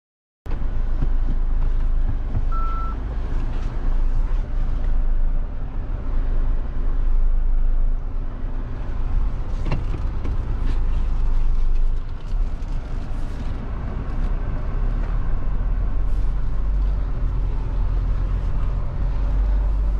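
Mahindra Thar's turbo-diesel engine running at low speed, heard from inside the cabin as it crawls over rough dirt, with a steady low rumble. A short beep comes about two and a half seconds in, and a sharp knock about ten seconds in.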